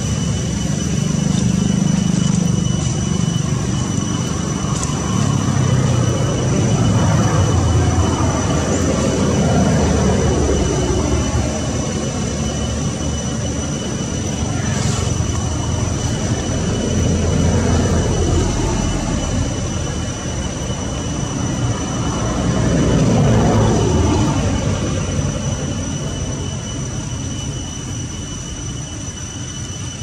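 Low rumble of motor vehicles passing by, about three of them swelling and fading over a few seconds each, over a steady high whine.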